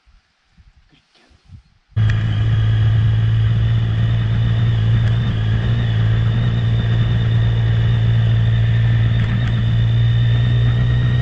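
Motorcycle running at a steady cruising speed, heard from on the bike. It cuts in abruptly about two seconds in as a steady low engine note with a high whine above it, after a few faint small sounds.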